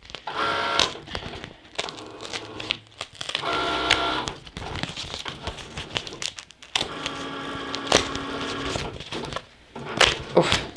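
Paper crackling and crinkling as a sublimation-printed adhesive vinyl sticker is peeled off its sheet by hand. Behind it a Cricut Maker cutting machine whirs in three short runs.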